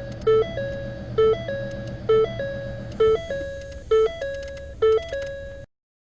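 Background music: a short, bell-like electronic melody repeating about once a second, which cuts off abruptly near the end.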